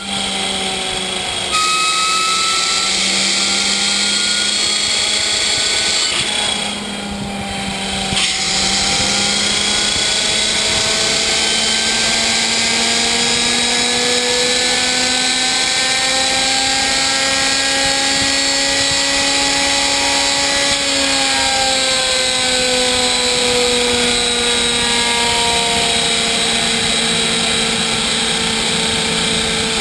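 Homemade gas turbine rig running with a steady whine. The level dips briefly about seven seconds in. From about nine seconds in, the pitch climbs slowly for some ten seconds, then eases back down and holds.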